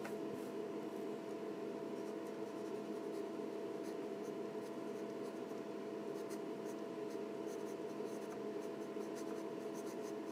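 Ink pen scratching across paper in many short strokes as line art is hatched in, over a steady low background hum.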